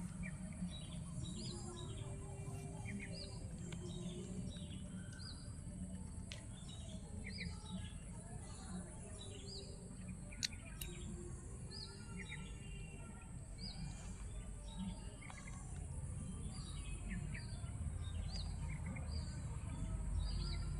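Birds chirping outdoors: short, high calls repeating about once a second over a low background rumble, with a single sharp click about halfway through.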